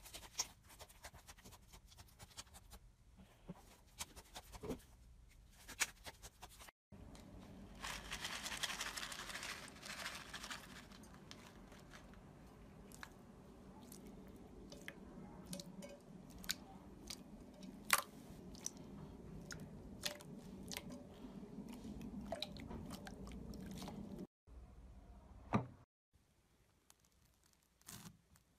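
Slime being squished, pressed and pulled by hand: quiet sticky crackling and squelching, full of small sharp pops and clicks. The sound breaks off abruptly between short clips of different slimes: a glossy swirled slime, a clear green glitter jelly slime, and a bead-filled floam slime.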